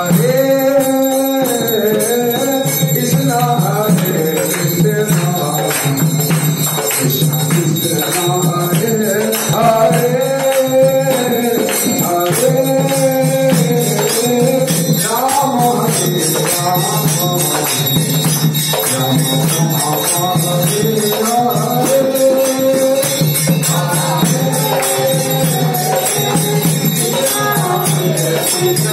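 Hindu devotional kirtan: voices chanting a melodic call-and-response, with jingling small hand cymbals (kartals) and a mridanga drum keeping a steady beat.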